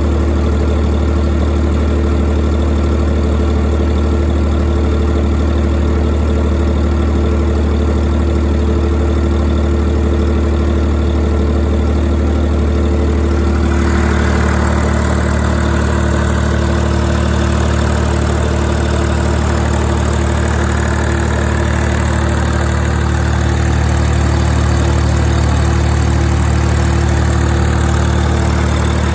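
YD385 three-cylinder diesel driving an 11 kW generator, running at a steady governed speed. About halfway through its sound changes abruptly and grows harsher and fuller, typical of an electrical load suddenly switched onto the genset.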